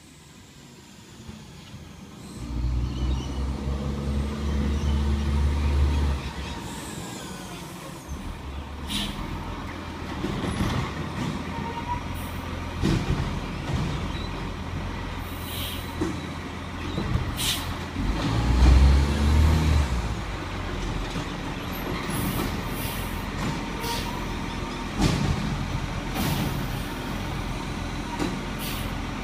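Diesel garbage truck running as it drives up, its engine rising to loud revs a few seconds in and again later. Repeated short air-brake hisses and clunks as it pulls up and stops along the kerb.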